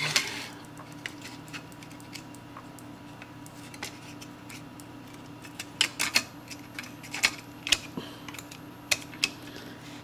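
Light, scattered clicks and taps of the plastic shell and parts of a Logitech M570 trackball mouse being handled and fitted together, with a sharper click right at the start and a denser run of clicks in the second half.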